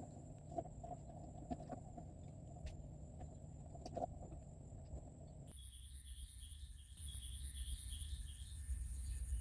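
Insect chorus droning in a steady high whine over a low rumble, with a few soft clicks. About halfway it changes abruptly to a higher whine with a rhythmic pulsing buzz beneath it.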